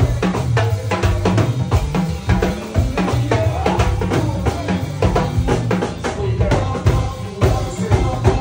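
Live go-go band playing a dense, driving drum-and-percussion groove: rapid hits on a percussionist's set of tuned drums and cymbal along with drum kit, over a heavy low end.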